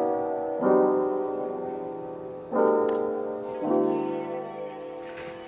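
Piano playing slow chords, each struck and left to ring and fade before the next, one every second or two.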